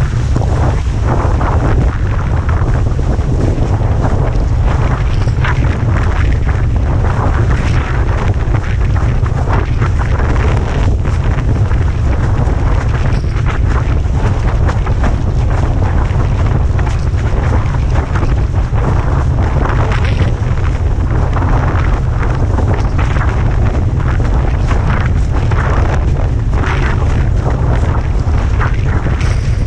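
Heavy wind buffeting the microphone as a windsurf board planes over choppy sea, with the steady rush and splash of water and spray against the board.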